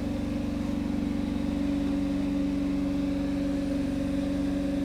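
An engine idling steadily, a constant hum over an even low rumble.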